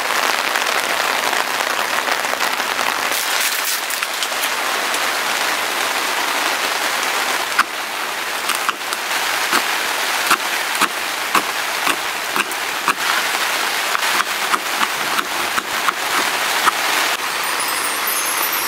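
Heavy rain falling in a steady hiss. From about halfway in, a run of irregular sharp taps comes through on top of it.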